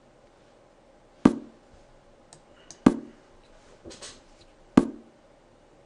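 Sharp clicks as moves are made in an online blitz chess game: three loud ones about a second and a half to two seconds apart, with a few fainter clicks in between.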